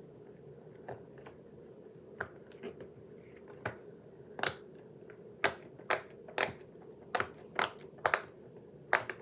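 Bubbles of a silicone pop-it fidget toy being pressed through: a string of irregular sharp pops, sparse at first and coming faster in the second half.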